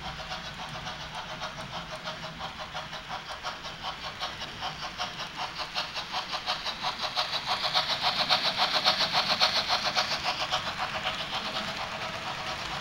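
Märklin H0 model of a BR 01 steam locomotive running with its Rheingold coaches on metal three-rail track, making an even rhythmic clicking pulse of about four beats a second over a steady mechanical whir. It gets louder a little past the middle as it passes close.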